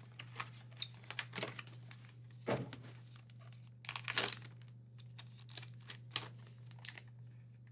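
Crinkling and rustling of a Gold Rush trading-card pack pouch and its cardboard box being handled, in irregular short crackles.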